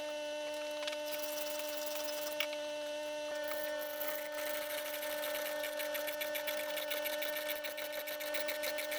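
Electric winch motor running with a steady whine as it pulls a car in. From about three and a half seconds in, a fast, even clicking joins it.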